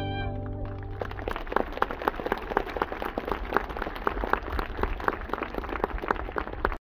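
The last note of the violin and plucked-string accompaniment fades out in about the first second, then the audience claps in steady applause.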